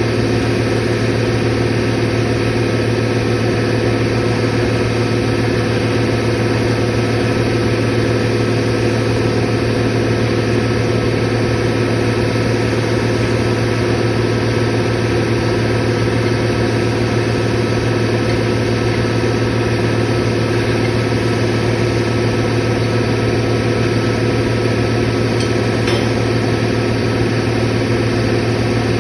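Steady, loud drone of running compressor machinery: an even low hum with several steady tones over it, unchanging throughout.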